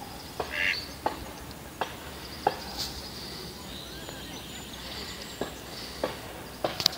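Pond-side outdoor ambience. There is one short animal call about half a second in, faint high bird chirping, and a few sharp scattered clicks.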